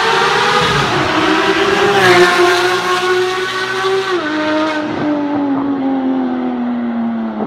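Porsche 991 GT3's flat-six with an Fi Exhaust system driving past at high revs. It makes one strong wailing note that is loudest about two seconds in, steps down in pitch about one and four seconds in, then sinks slowly as the car pulls away.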